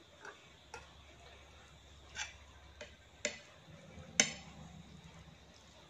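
Metal forks clinking against a ceramic plate while stirring and lifting noodles: about six separate clicks, the loudest about four seconds in.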